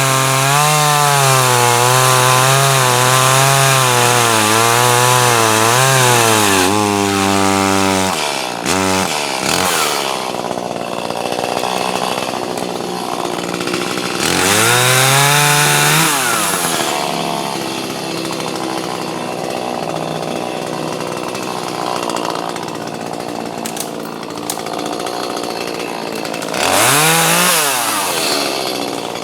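Chainsaw running at full throttle, its pitch wavering as it cuts wood, then dropping to idle about eight seconds in. It is revved briefly twice more, around the middle and near the end.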